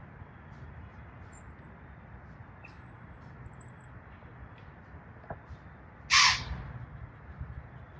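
A white-tailed deer's alarm snort: one short, loud, hissing blast of air about six seconds in, a warning to keep away. A few faint high bird chirps earlier on.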